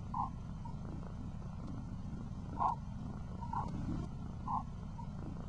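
Spacecraft radio emissions played back as sound: a steady low rumble with a few short, higher blips scattered through it.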